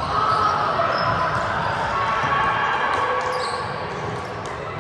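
Echoing ambience of a busy multi-court volleyball gym: overlapping players' voices, sneakers squeaking now and then on the hardwood floor, and volleyballs being struck.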